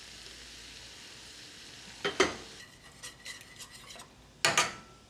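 Food sizzling quietly in a pan on a stove turned down low. About two seconds in a metal utensil knocks against the pan, and a few light clicks follow. Near the end comes a louder clatter of cookware.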